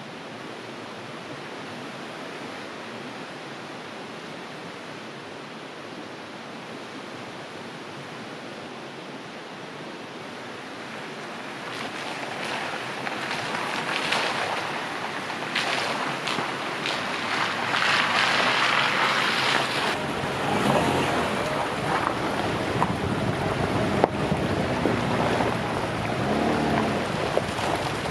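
Vehicle driving up a rough logging road: a steady rush of wind and road noise that grows louder about twelve seconds in, with an engine note rising and falling under load later on.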